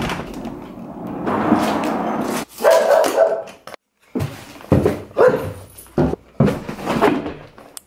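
A pet dog barking repeatedly in short bursts.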